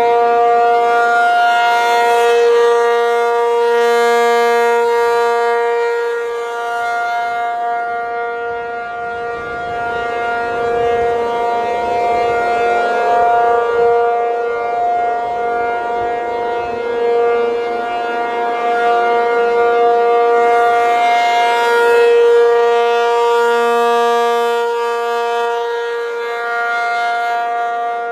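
Rotating outdoor warning siren sounding a steady tone at an unchanging pitch. It swells louder and fades again as the siren turns toward and away, about once every twenty seconds.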